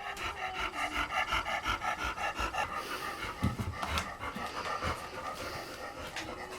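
A cat panting: rapid, even breaths, about seven or eight a second, growing weaker in the second half.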